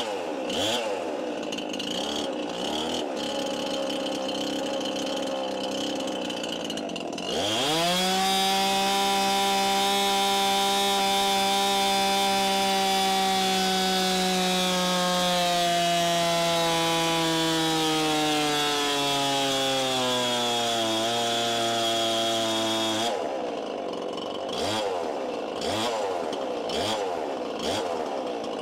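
Holzfforma G366 two-stroke chainsaw (Stihl MS361 clone, stock HyWay cylinder kit) on a chainsaw dyno: it idles, then about 7 seconds in goes suddenly to full throttle near 11,000 rpm. Its pitch falls slowly for about 15 seconds as the dyno brake loads it down through the power run. About 23 seconds in the throttle is let off and it drops back to idle.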